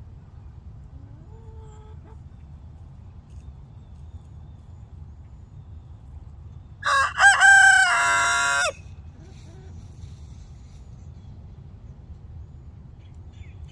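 A young rooster crowing once, a little past halfway, in a single crow of about two seconds. He is a late-blooming cockerel who has only just begun to crow.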